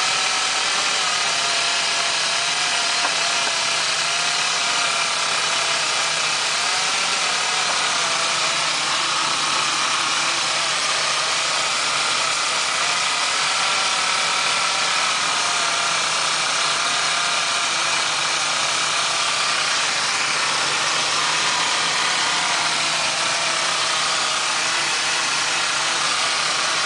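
1999 Ford Explorer's 4.0L OHV V6 idling steadily, with a faint whine that wavers slightly in pitch. The owner suspects a vacuum leak at the upper intake plenum gasket, which is setting lean codes on both banks.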